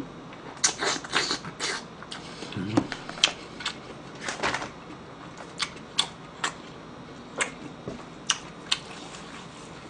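Close-miked eating sounds from a mukbang: chewing and slurping noises in the first few seconds, with a brief low hum about three seconds in, then a series of sharp clicks and smacks, several about half a second apart.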